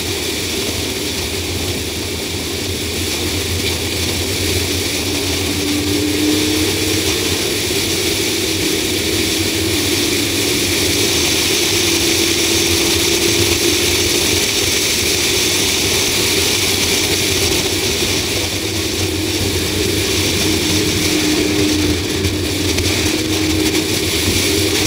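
A 2004 Ford Explorer V8 cruising at road speed, heard from a camera mounted on the outside of the vehicle: steady wind and road noise with a faint hum that drifts slightly in pitch.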